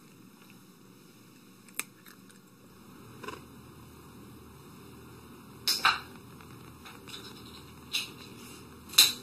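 Several sharp clicks over a faint steady hiss, spaced a second or two apart, with the loudest one near the end.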